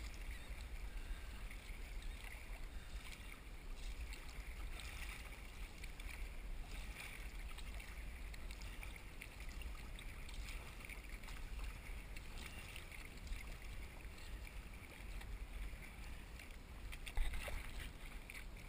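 Sea kayak paddled through choppy water: paddle strokes and water lapping and splashing against the hull, over a steady low rumble, with a louder splash or knock near the end.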